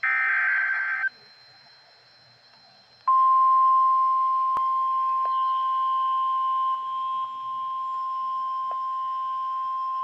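Emergency Alert System broadcast: a second-long warbling data burst from the end of the digital alert header, then after about two seconds a single steady high beep near 1 kHz. This is the NOAA Weather Radio alert tone that comes before a National Weather Service warning, and it holds unbroken.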